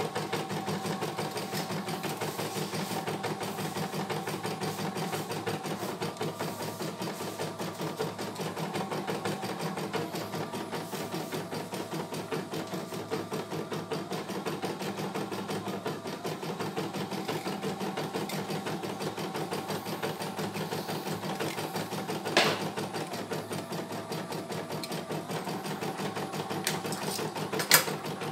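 CNY E900 computerized embroidery machine stitching a design: fast, even needle strokes over a steady hum that steps in pitch now and then. Two sharp clicks late on, a few seconds apart.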